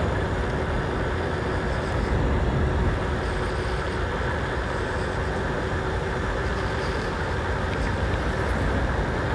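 Steady wind rush and road noise from riding an electric bike at speed, with a faint, steady hum underneath.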